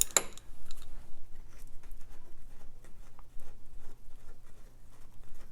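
A ratchet wrench clicks once right at the start, then faint, scattered light clicks and taps of small metal parts being handled as the oil pump nuts are worked loose.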